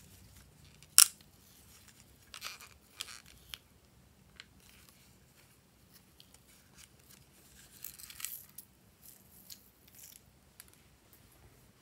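A small plastic toy container being handled, with flower-shaped plastic confetti shaken out and sprinkled. One sharp click about a second in, then scattered light clicks and rustles.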